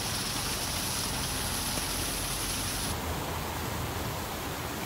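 Water of a small stream rushing down a narrow waterfall and over a small weir: a steady, dense splashing hiss. About three seconds in, the sound shifts slightly and the highest hiss softens.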